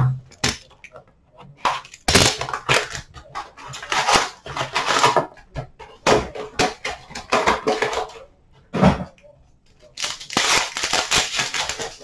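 Card box packaging and a foil trading-card pack crinkling and rustling as they are handled and slit open, in several bursts with short quiet gaps.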